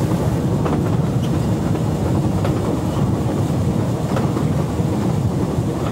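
A locomotive running along the line, heard from inside its cab: a steady rumble of engine and wheels on the rails, with a few faint clicks.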